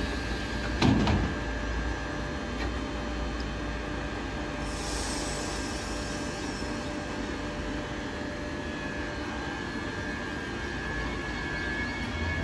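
Queensland Rail electric suburban train standing at the platform with a steady low hum as its sliding doors close, with a sharp knock about a second in. A short hiss of air comes about five seconds in.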